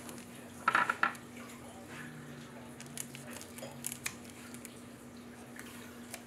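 Sharp clicks and taps from trading cards and scissors being handled on a tabletop. The loudest come in a quick cluster about a second in, with lighter ticks later, over a faint steady hum.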